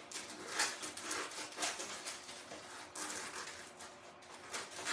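Scissors snipping through a card-and-plastic package: a string of irregular snips and rustling.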